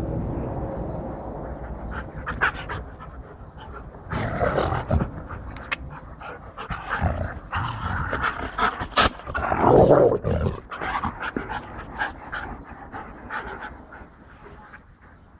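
White shepherd and German shepherd panting close up after running, in quick breathy bursts with scattered clicks, loudest about two-thirds of the way through.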